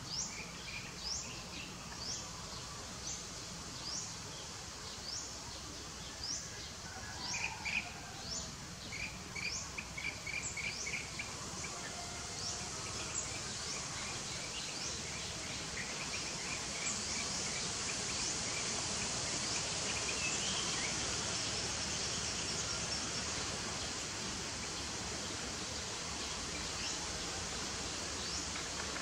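Outdoor natural ambience: a bird gives short high chirps about once a second, with a quick run of notes about ten seconds in, then a steady high insect buzz swells up and carries on through the second half.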